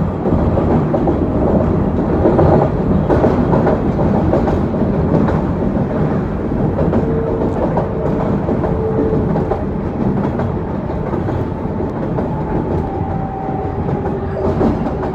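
R142A subway car heard from inside while it runs along the track: a steady rumble with wheel clatter on the rails. Faint whining tones appear and change pitch in the second half.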